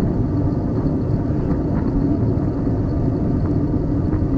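Steady wind rumble on the microphone of a camera moving along with a bicycle, mixed with rolling road noise.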